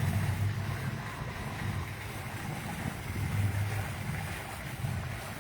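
Low, steady rumble of wind buffeting the microphone, rising and falling a little.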